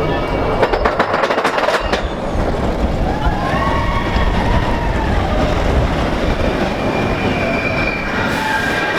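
Expedition Everest roller coaster train running on its track: a loud, steady rumble, with a rapid clatter of clicks in the first couple of seconds and gliding squeals in the middle.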